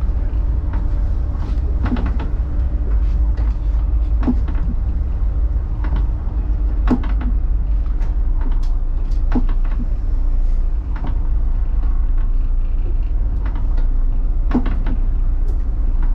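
Steady low drone of the escort tug's engines heard inside the wheelhouse, with a steady hum over it. Irregular sharp knocks and rattles come every second or so.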